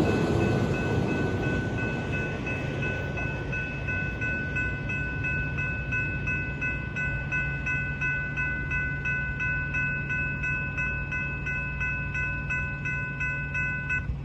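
Railroad grade-crossing warning bell ringing in rapid, even strikes, while the rumble of the departing passenger train fades over the first few seconds. The bell cuts off near the end as the crossing clears.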